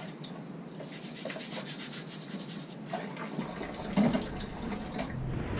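Washing up at a galley sink: rapid back-and-forth scrubbing of dishes, with water and a few light clinks of crockery.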